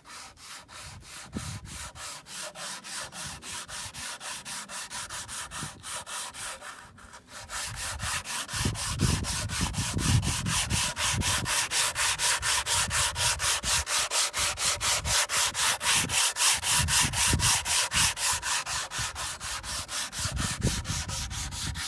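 Plywood being hand-sanded with a sanding block, rubbed back and forth in quick, even strokes, growing louder about a third of the way in.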